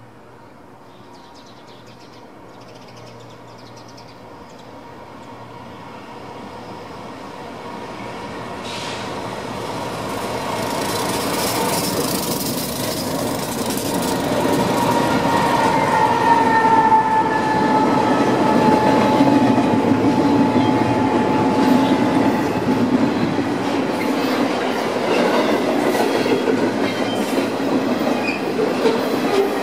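BNSF diesel freight train approaching and passing close by: its rumble grows steadily louder over the first fifteen seconds as the locomotives come up, with a thin high whine that falls slightly in pitch as they go by. The double-stack intermodal cars then roll past with repeated clicks of wheels over the rail joints.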